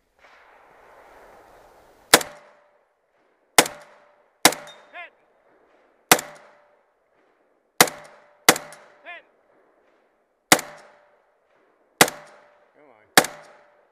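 AR-style carbine firing about nine single aimed shots at an uneven pace, starting about two seconds in, with a short wavering ring after some of the shots.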